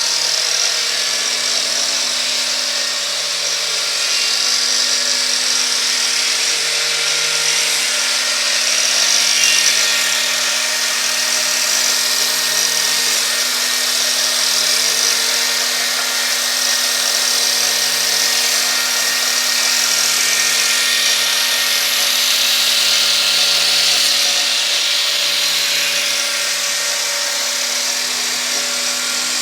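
Homemade wood copy-carving machine running: a 125 mm angle grinder fitted with a three-tooth saw disc whines steadily as it cuts a wooden propeller blank, over the steady rush of the vacuum-cleaner dust extraction.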